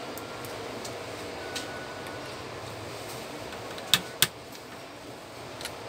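Light clicks and taps of a screwdriver against the metal frame and print head of an opened Epson TM-U220 printer mechanism, with two sharp clicks in quick succession about four seconds in, over a steady background hiss.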